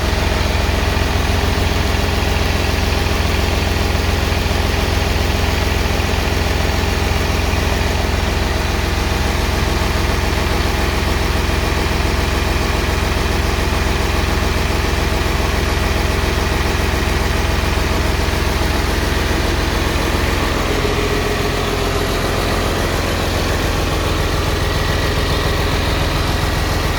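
Freshly rebuilt Mercedes-Benz OM366LA turbocharged, intercooled inline-six diesel engine idling steadily.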